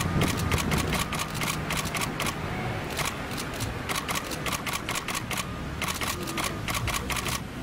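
Still-camera shutters firing in rapid bursts: clusters of quick clicks, several a second, one volley after another.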